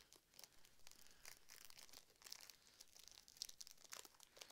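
Faint crinkling and rustling of a Yu-Gi-Oh booster pack and its cards being handled: a scatter of short, crackly sounds.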